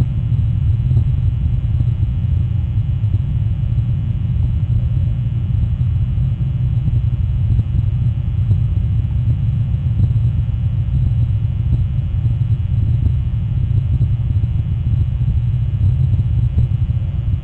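A steady low rumble with a faint hiss above it, continuous and unchanging, as picked up by an outdoor nest camera's microphone.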